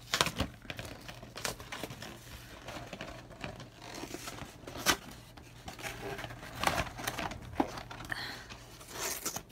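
Cardboard and plastic packaging of a trading card collection box being pried and torn open by hand: irregular crinkling and tearing with sharp snaps, loudest about a second and a half in and again near five and seven seconds.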